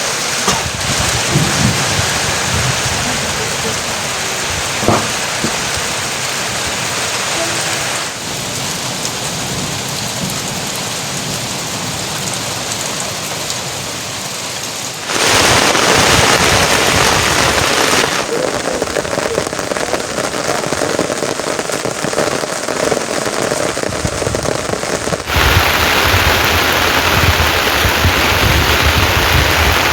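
Steady rain falling, an even hiss of drops that jumps abruptly in level several times and is louder over the second half.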